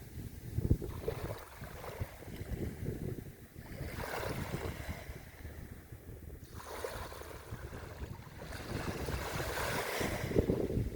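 Surf washing onto a beach in slow swells of hiss, with wind buffeting the microphone as a gusty low rumble.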